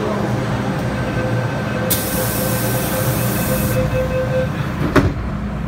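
MTR Tsuen Wan Line M-Train standing at a station as its doors close: a steady hum and tone, a burst of air hiss about two seconds in that lasts under two seconds, and one sharp clunk near the end.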